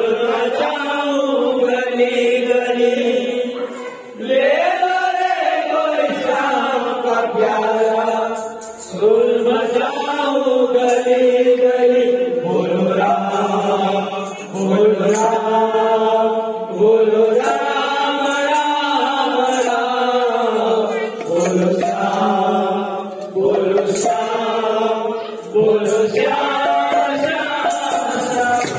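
Voices chanting a Hindu devotional kirtan in long, drawn-out sung phrases. A hand-played barrel drum and jingling metal-disc clappers keep time.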